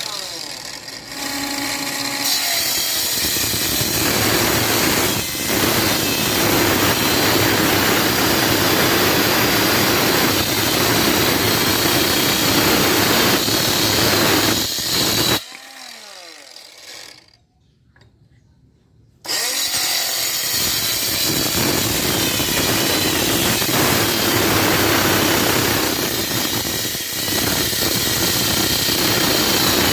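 Homemade cordless mini circular saw, driven by an RS 895 DC motor through a salvaged circular-saw gearbox, cutting wood. The cut runs for about thirteen seconds, then the saw winds down and goes nearly quiet for a few seconds. A second long cut starts about nineteen seconds in.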